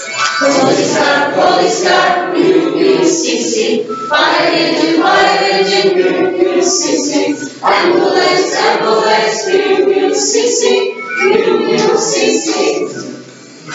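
A class of students singing a song together in chorus, in phrases with short breaks between them.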